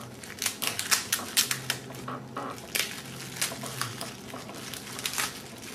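Packaging being handled, with rapid, irregular crackles and clicks that come in clusters through most of the moment.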